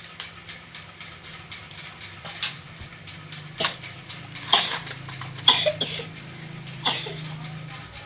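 A small child coughing several times, the loudest coughs in the middle, over a toy's steady clicking of about four ticks a second and a low hum.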